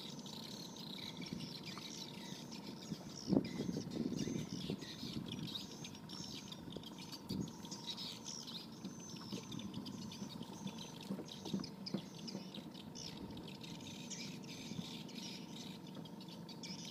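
Birds chirping continuously in many short calls, with scattered low knocks and handling noise, the sharpest a knock about three seconds in. A faint steady high tone runs underneath.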